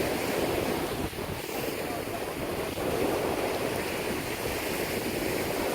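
Gulf surf washing in steadily, mixed with wind buffeting the microphone.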